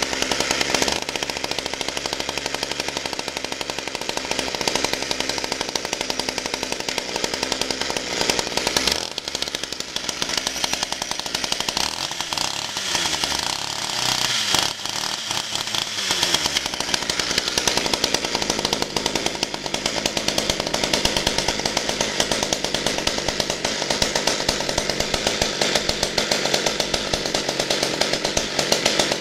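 Partner 350 vintage two-stroke chainsaw, about 35cc, running just after starting. Its engine speed dips and rises for a few seconds around the middle, then it settles into steady running.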